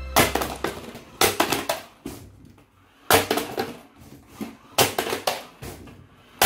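A series of sharp knocks and clatters, irregularly spaced roughly a second apart, with quiet gaps between. No motor whine is heard. They are most likely the toy RC jeep and the plastic tube obstacle being knocked about on a hard floor mat.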